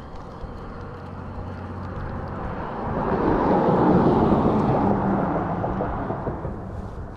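A pickup truck driving past, rising to its loudest about halfway through and then fading away.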